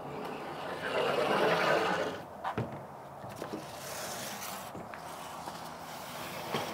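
Rustling and rubbing as fiberglass mast poles are handled and wiped down with a damp rag, loudest for about a second near the start, followed by a few light knocks of the poles.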